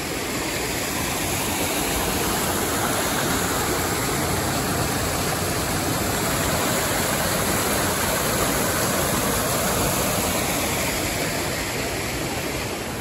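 Small mountain creek rushing and splashing over rocks: a steady hiss of running water.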